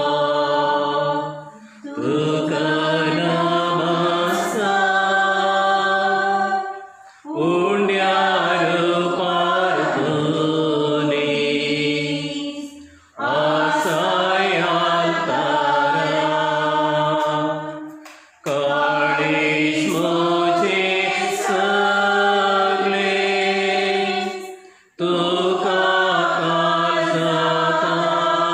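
Voices singing a slow devotional adoration hymn in long held phrases, each about five to six seconds, with short breath pauses between them.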